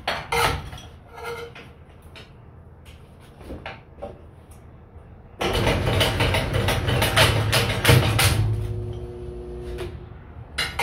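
Homemade kindling machine: a few knocks of wooden boards being set in the feed tray, then about halfway in the motor-driven crank starts and the pusher forces the wood through the splitting blade with a sudden burst of cracking and clattering for about three seconds. The motor then hums on steadily for a moment and stops near the end.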